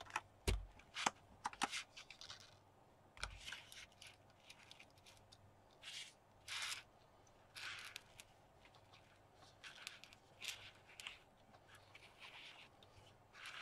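Quiet handling of a magnetic field viewing film and plastic magnet rings on a desk mat: a few sharp clicks and two soft knocks in the first two seconds, then short rustling scrapes as the film and rings are slid and repositioned.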